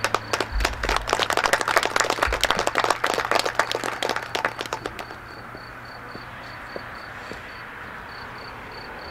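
A small audience applauding, the clapping thinning out and stopping about five seconds in.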